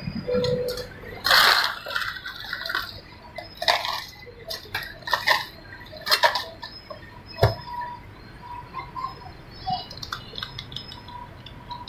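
Ice cubes clattering and clinking as a metal scoop digs into a cooler box of ice and tips it into a plastic cup. There are several separate bursts of clatter, and a sharp knock about seven and a half seconds in.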